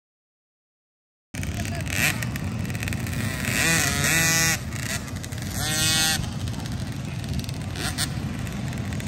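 Silent for the first second or so, then outdoor pit-area background noise with a small engine revving in quick rising and falling blips, twice, about midway through.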